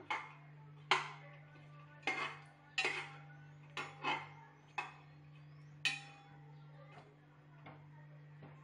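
A large metal spoon knocking and scraping against a cooking pot while stirring whole spices in oil, about eight sharp ringing clinks in the first six seconds and fainter ones after. A low steady hum runs underneath.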